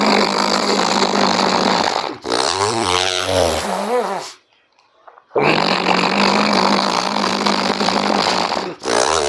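Ujjayi pranayama breathing: a long hoarse rasping breath drawn through the constricted throat, then a shorter breath with the voice sounding and its pitch wavering. The cycle comes twice, with about a second of silence between.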